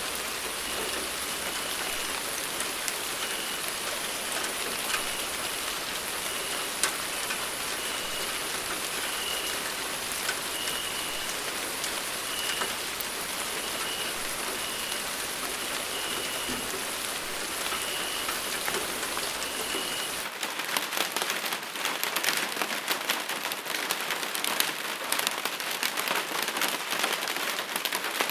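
Steady rainfall, an even hiss of rain on a surface. About twenty seconds in it changes abruptly to a closer, crackling patter of many individual drops.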